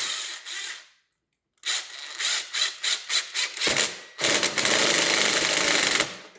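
A power tool is tightening the spring-loaded clamps on an intercooler charge pipe. It runs in short stop-start bursts for several seconds, then in one steady run of about two seconds that cuts off abruptly.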